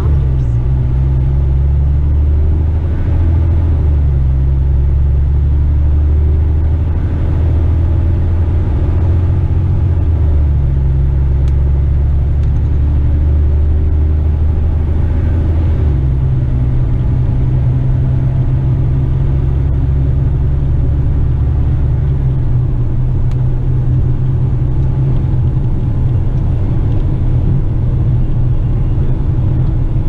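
Diesel engine of a loaded Western Star dump truck running under way, heard from inside the cab. Its low hum steps in pitch a few times, most clearly about 16 seconds in.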